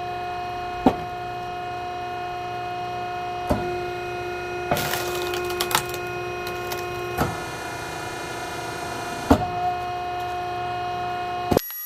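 Oak firewood logs knocking and clattering against each other: about half a dozen sharp wooden knocks over a steady mechanical hum. The sound cuts off abruptly near the end.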